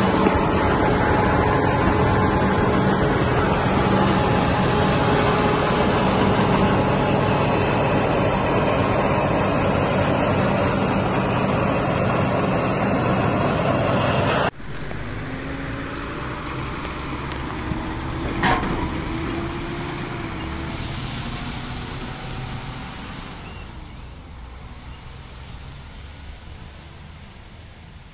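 Tractor engine running steadily, close and loud, while pulling a silage wagon. About halfway through the sound cuts to a quieter tractor and wagon passing on a road and fading away, with a single sharp click a few seconds after the cut.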